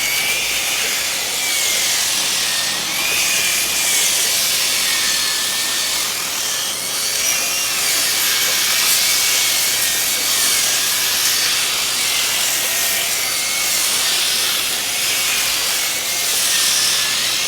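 Power sander working on old wooden clapboard siding: a steady abrasive hiss over a high motor whine that wavers up and down in pitch.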